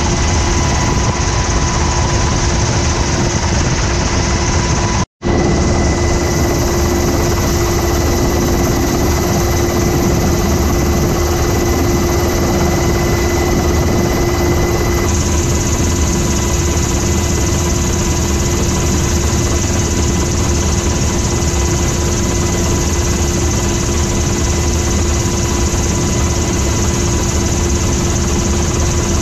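Loud, steady in-flight cabin noise of an MH-60R Seahawk helicopter heard from inside the cabin by the open door: rotor and twin-turboshaft drive noise with a steady high whine. The sound cuts out for an instant about five seconds in.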